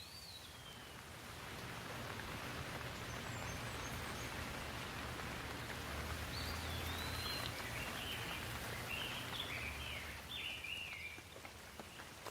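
Steady rain falling on leaves, growing louder a couple of seconds in and easing near the end, with a bird calling in short chirps, once at the start and in a run through the second half.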